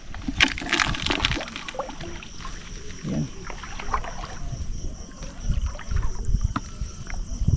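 Shallow seawater splashing and sloshing underfoot and by hand, with a cluster of splashes about half a second to a second and a half in. A steady high insect trill runs behind it.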